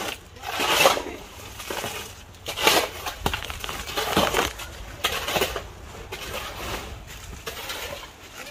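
Steel shovels scraping and scooping through wet concrete mix on hard ground, in repeated gritty strokes every second or two.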